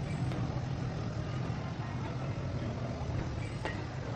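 Steady low engine drone of motor vehicles running. A single light click comes near the end.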